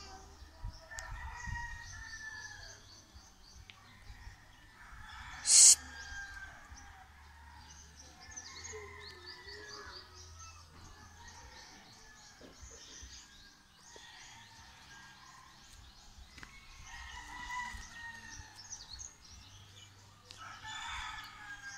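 Birds chirping steadily, with a rooster crowing now and then. A brief, sharp, loud sound breaks in about five and a half seconds in.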